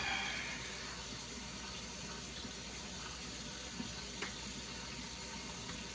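Steady rushing noise, even and unchanging, like water running from a tap. There are a couple of faint soft ticks about four seconds in.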